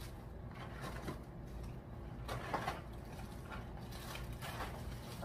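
Packs of small raisin boxes being handled and set down on a table: a few soft rustles and light knocks over a low steady room hum.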